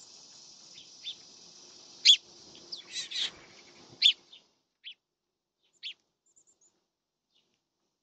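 Small songbirds at a seed feeder giving short, sharp chirps, about six spread over the first six seconds, the loudest about two and four seconds in, over a steady high hiss that cuts off about halfway through.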